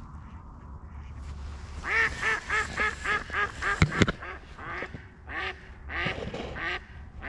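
Live decoy hen duck quacking: a fast run of about eight quacks, then slower, spaced quacks, calling to ducks passing overhead. A single sharp click about four seconds in.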